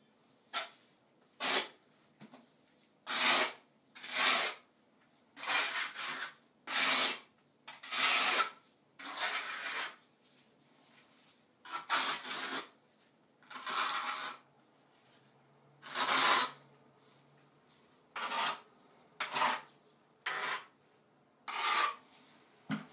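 Trowel scraping thinset mortar, scooping it from the bucket and spreading it across the back of a tile, in about fifteen short, irregularly spaced scraping strokes.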